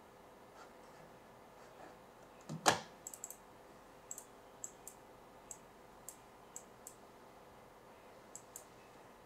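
Computer mouse clicking: about a dozen short, sharp single clicks scattered through the second half, with one louder knock about two and a half seconds in.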